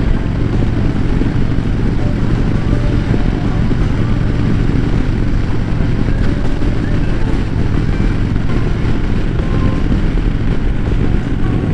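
Harley-Davidson Road Glide Special's V-twin running steadily at cruising speed through Rinehart slimline true-dual exhaust, with a constant rush of wind and road noise over it.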